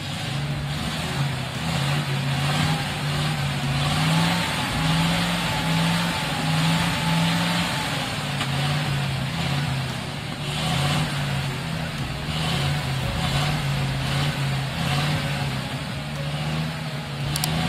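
Engine of a loaded Ural 6x6 truck running under load as it crawls over soft forest ground, its note rising and falling with the throttle.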